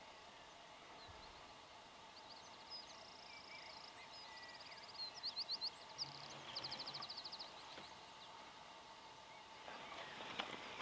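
A small songbird singing several fast trilled phrases, high-pitched and quiet, over a faint steady outdoor background; a few faint rustles or clicks near the end.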